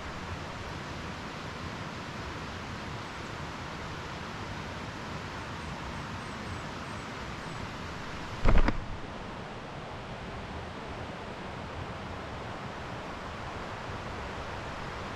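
Steady outdoor rushing noise with one short thump a little past the middle.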